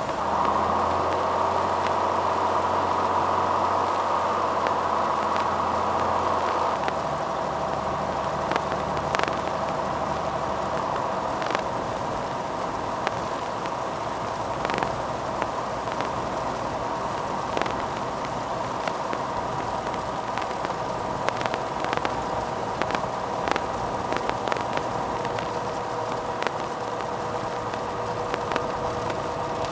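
Cessna 182 Skylane's single piston engine and propeller running steadily, heard inside the cabin on final approach and touchdown. The lowest part of the drone changes about seven seconds in and fades out a few seconds later, with scattered light clicks throughout.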